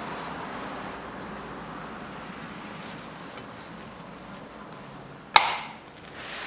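A valve being fitted into a Toyota 3S-FE cylinder head, with one sharp click about five seconds in over a faint steady background.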